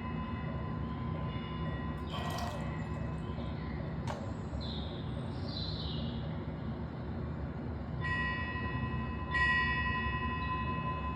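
A metal wind chime ringing over a steady low rumble of background noise. Its tones fade away, then it is struck again twice, about eight and nine seconds in. A couple of sharp clicks sound near the middle.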